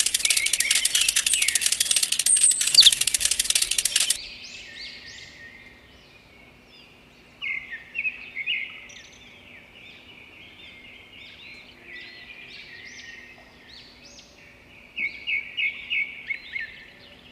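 A loud, dense rattling buzz that cuts off about four seconds in. Then birds chirp in short, repeated calls over a faint steady hum, with bursts of chirps around eight seconds in and again near the end.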